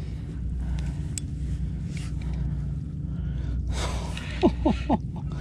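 A man's sharp breath, then three quick grunts of effort falling in pitch, as he strains against a hooked fish on a spinning rod. A steady low hum runs underneath.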